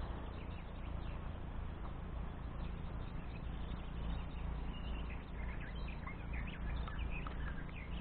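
Wind buffeting the microphone with a steady low rumble, while small birds chirp and twitter in the background, more often from about the middle onward.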